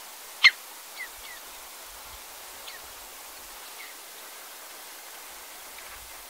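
Common redshank calling: one loud, sharp call about half a second in, then a few short, falling whistled notes. A steady hiss runs underneath.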